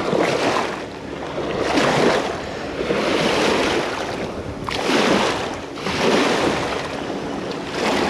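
Small waves washing up onto a rocky river bank in repeated swells, about one every second and a half.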